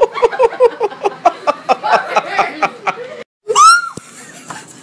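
People giggling in quick rhythmic bursts. Then an abrupt cut and a short, loud, high-pitched scream that rises and falls, lasting about half a second.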